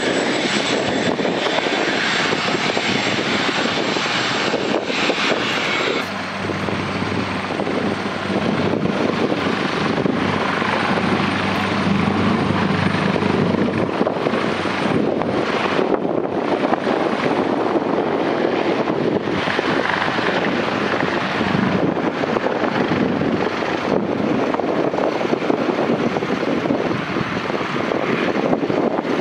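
AgustaWestland AW139 helicopter taking off and climbing away: its twin turbine engines and main rotor run at full power with a steady rush and a thin high whine. About six seconds in the whine shifts slightly and the level dips briefly.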